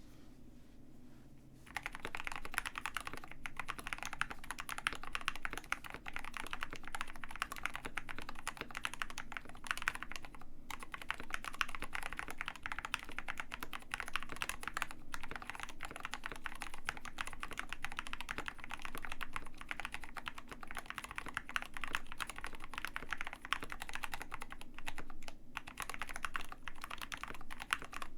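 Fast, continuous typing on a KBD67 Lite R2 65% custom mechanical keyboard with Gateron Black Ink V2 linear switches, in an ABS plastic case with a silicone mute mount. It starts about two seconds in and pauses briefly twice.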